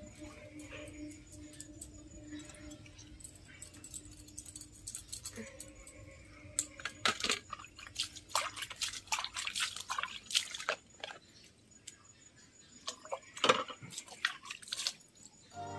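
Metal puja plates and bowls being scrubbed and rinsed by hand: clinks and clatters of the metal dishes with water splashing and pouring, in busy bursts from about six seconds in and again near the end.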